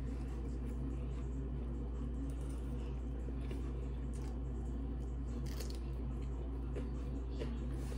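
Close-up eating sounds: chewing and crunching bites of raw vegetables and rice, with short crisp crackles, the clearest about four and five and a half seconds in. A steady low hum runs underneath.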